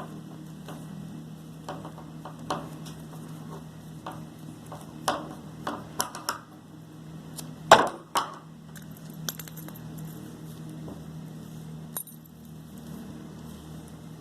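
Twigs and yarn being handled as yarn is wrapped around a small twig frame: scattered light clicks, taps and rustles, with the sharpest tap about eight seconds in, over a steady low hum.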